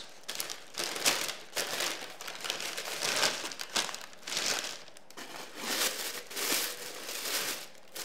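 White packing paper crinkling and rustling in irregular bursts as it is pulled open by hand to unwrap a wine glass.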